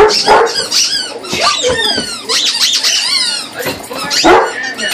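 Squeaky rubber chicken toy squeaking over and over in quick, rising and falling squeaks, with a dog vocalising in among them.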